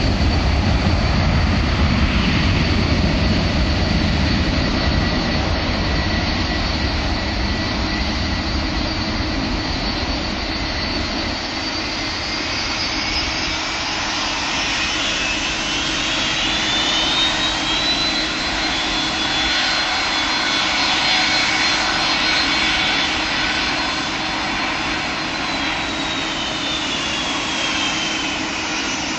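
Boeing 757-200's twin jet engines at takeoff thrust through the takeoff roll: a heavy low rumble that thins out after about ten seconds, with whining tones that climb in pitch about halfway through and drop again near the end.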